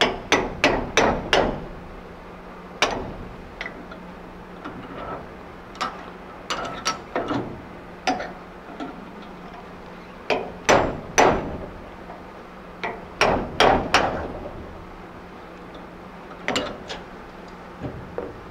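Hammer striking a steel cold chisel set in the hacksaw slot of a soldered copper pipe joint held in a bench vise, pounding to split the fitting and peel it back to expose the solder. Sharp metallic blows come in irregular bunches of several quick strikes with short pauses between.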